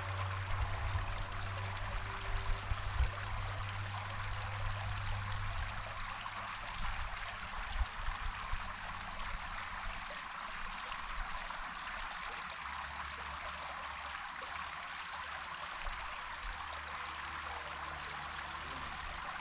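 A steady rushing hiss of outdoor noise, with irregular low rumbles of wind on the microphone, mostly in the first half.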